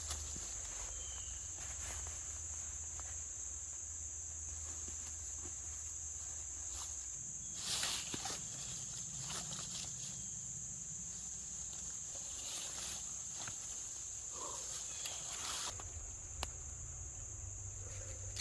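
A steady, high-pitched chorus of insects in the woods, with scattered small rustles and clicks and one louder rustle about eight seconds in.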